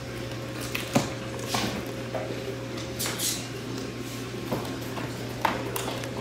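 Scattered taps, clicks and rustles of a toy box and its packaging being handled and opened, over a steady low hum.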